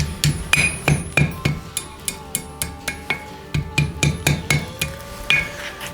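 Hammer striking hot 1/4-inch mild steel on an anvil, quick light blows about three a second, in two runs with a pause of about two seconds between them: final adjustments to forged fiddle-head scrolls.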